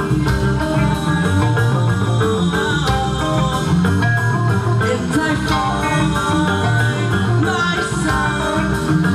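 Rock band playing live: electric guitars, bass guitar and a drum kit with steady cymbal strokes, and a singer's voice over them.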